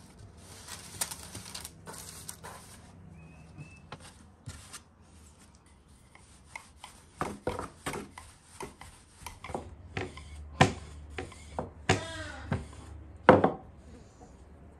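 Parchment paper rustling as a calzone slides onto a baking tray. Then a wooden rolling pin works dough on a wooden board, with a run of sharp wooden knocks and clicks, the loudest near the end.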